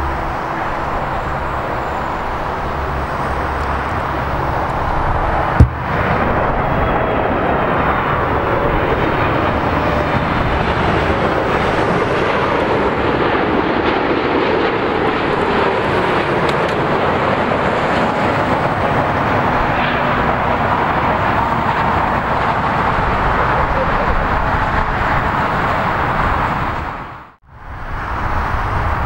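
Boeing 787 Dreamliner jet airliner on final approach flying past: a steady rushing jet noise that builds over the first few seconds and then holds, with a faint whine sliding down in pitch. One sharp knock about five and a half seconds in, and the sound cuts out briefly near the end.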